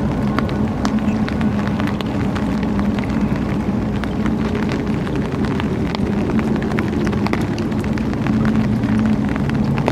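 A steady low engine drone with scattered faint clicks.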